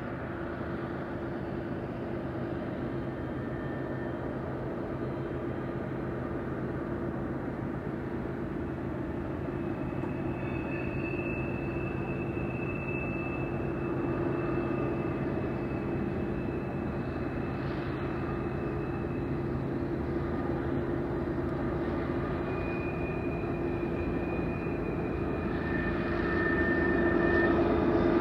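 Several BNSF diesel locomotives hauling a double-stack container train, engines running under power with a steady drone that grows louder as they approach. Higher tones come and go over the engine sound.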